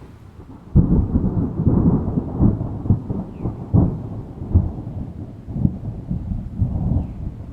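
Thunder: a sudden loud crack under a second in, then a long rolling rumble with repeated cracks that eases off near the end.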